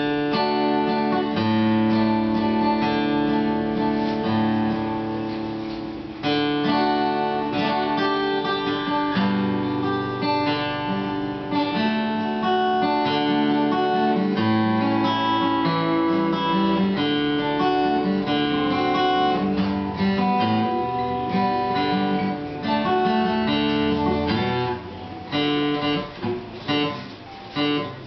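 Acoustic guitar played solo, strummed chords running on as a song. Near the end the playing breaks into separate strums with short pauses between them.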